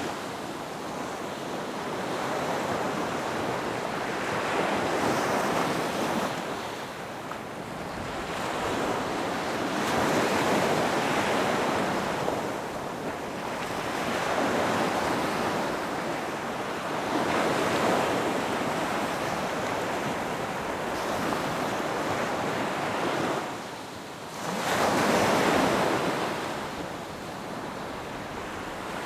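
Ocean surf with wind: waves wash in, swelling and fading every few seconds, with a brief lull and then a stronger surge near the end.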